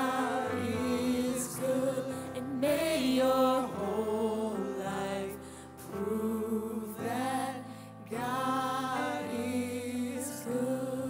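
Worship team singing a slow worship song, a group of voices in sung phrases with short breaks between them, over acoustic guitar accompaniment.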